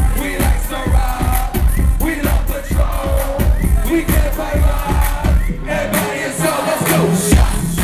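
Loud live concert music through a club sound system: a heavy, steady beat with vocals over it and the crowd shouting along. The deep bass drops out about six seconds in and comes back near the end.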